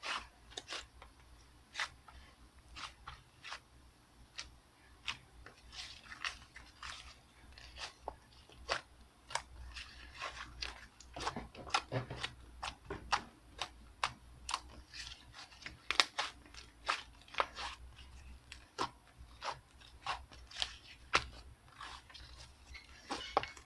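Slime being squeezed and pressed by hand, giving many sharp, irregular crackling clicks and pops.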